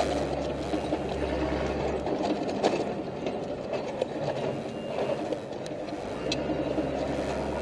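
Armoured military patrol vehicle driving fast over rough ground, heard from its open gun turret: a steady engine and road rumble with a few sharp knocks and rattles of loose gear.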